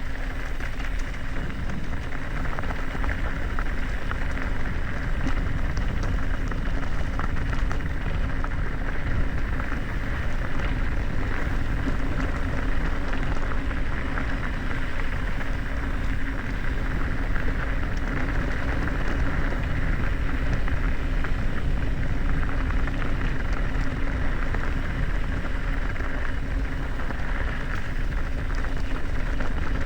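Mountain bike rolling fast down a dirt trail: a steady rushing noise of the tyres on dirt and gravel, with the bike rattling over the rough ground.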